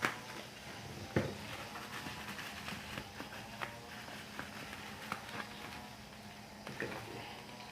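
Parcel packaging being handled: scattered light taps and crinkles, with sharper knocks about a second in and near the end, over a faint steady hum.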